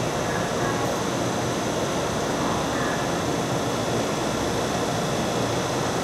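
Steady rushing hum of a stationary EMU500 electric multiple unit, its air-conditioning and auxiliary equipment running while it stands at the platform.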